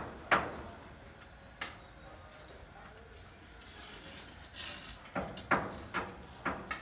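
Sharp, ringing knocks like hammer or tool blows on a hard surface: one just after the start, another about a second and a half in, then a quick run of five or six near the end.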